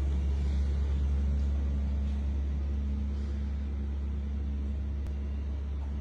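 Steady low droning hum that stays even throughout, with one faint click about five seconds in.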